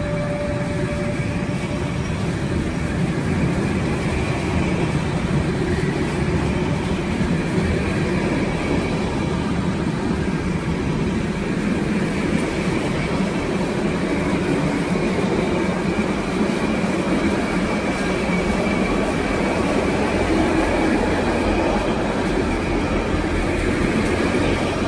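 Container freight train wagons rolling past close by: a steady, even rumble of wheels on rails with faint high squealing tones. A single high steady tone fades out in the first second or two.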